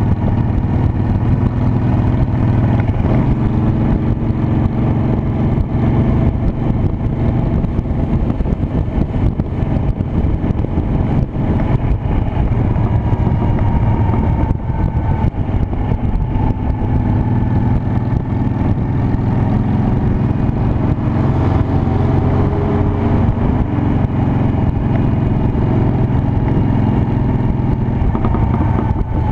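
Honda Shadow Spirit 750's V-twin engine running steadily while riding, a continuous low rumble with no sharp revving.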